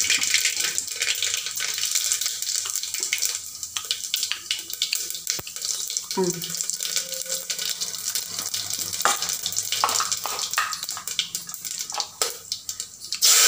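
Mustard and cumin seeds sizzling in hot oil in an aluminium pressure cooker, a steady hiss with many small sharp pops as the seeds crackle during tempering.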